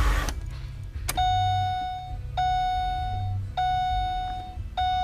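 Holden VE Commodore's dashboard warning chime sounding at ignition-on. A click about a second in is followed by a single ringing tone repeated about every 1.2 seconds, each ring fading over about a second.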